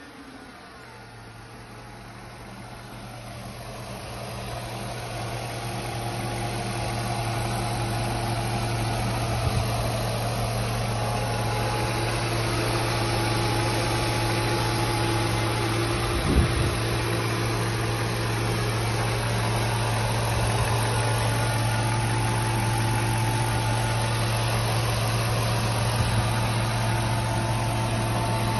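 Mercedes-Benz C140 CL420's 4.2-litre V8 petrol engine idling steadily, growing louder over the first several seconds, with one brief thump a little past halfway.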